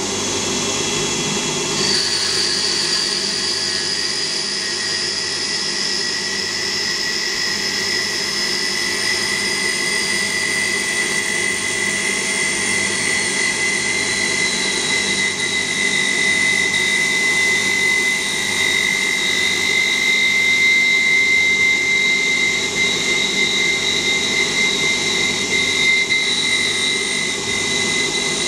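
Small CNC lathe turning Victorian Ash timber with a carbide insert: steady machining noise of the running spindle and the cut, with a high whine whose pitch drifts slowly and shifts about halfway through.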